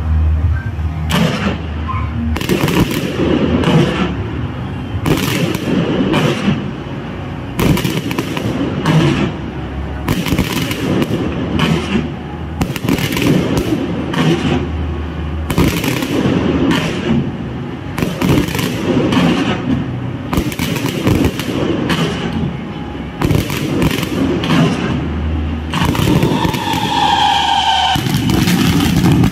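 Fireworks display going off at close range: a rapid, continuous barrage of bangs and crackle from bursting aerial shells, with a few whistling tones from rising shells near the end.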